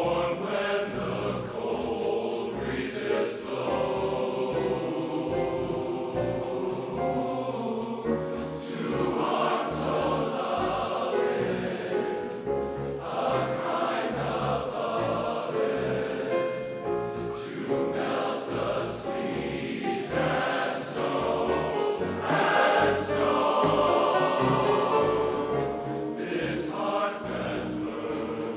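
A large men's chorus singing in harmony.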